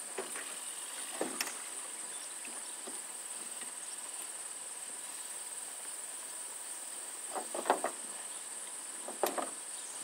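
Steady high-pitched chirring of crickets, with a few brief knocks and splashes as oars are worked in the oarlocks of an aluminum rowboat, the loudest about three-quarters of the way in.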